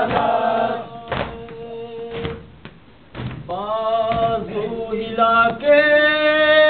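Men's voices chanting a noha, an Urdu mourning lament, with a few dull thumps of hands beating on chests in the first half. About three and a half seconds in, a lead reciter at a microphone sings a line that ends in one long held note.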